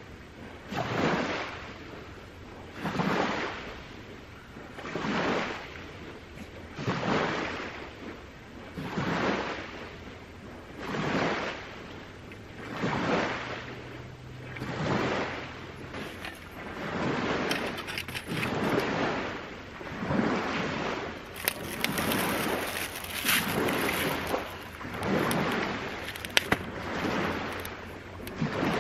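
Small waves washing onto the shore in a steady rhythm, one swell about every two seconds. A light crackling joins in over the last several seconds.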